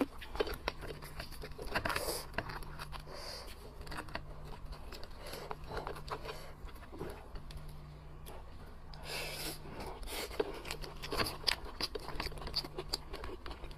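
Close-up eating sounds: a spoon scraping meat and tomalley from a steamed lobster, chewing, and gloved hands handling the hard shell with many small clicks, taps and scrapes, over a faint low hum.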